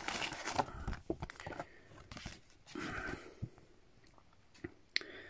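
Cardboard and paper packaging rustling as items are handled in a box, loudest in the first second and a half, then a few scattered light taps and clicks as a card is picked up.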